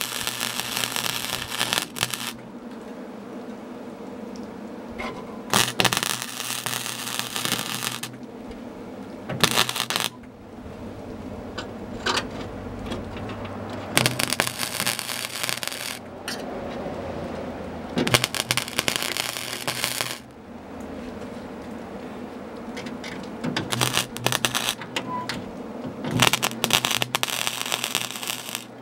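MIG welder arc crackling and spitting in about six short bursts of one to three seconds, with pauses between, as small holes in a steel truck door panel are filled with plug welds. A low steady hum runs underneath.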